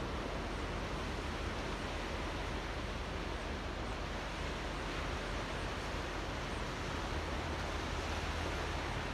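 Small waves lapping and washing against the shore of a coastal channel, making a steady, even wash with no distinct breaking crashes.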